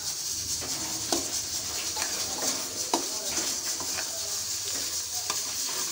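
A spatula stirring and scraping thick semolina halwa around a steel wok as sugar is worked in, with a steady sizzling hiss from the halwa frying in ghee. A couple of sharp knocks from the spatula against the pan.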